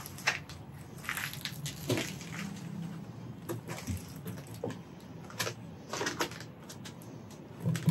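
Crunching of fire-burned debris and charred boards: short, irregular crunches and clicks scattered through, a couple of them sharper and louder.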